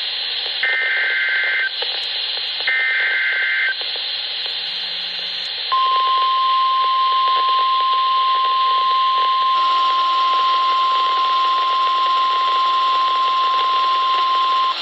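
NOAA Weather Radio alert through a handheld radio's speaker over static hiss: two short SAME data bursts, each a rapid two-tone chirp about a second long, then after a brief gap the steady 1050 Hz warning alarm tone, held for about nine seconds before it cuts off. This sequence signals a Severe Thunderstorm Warning being issued.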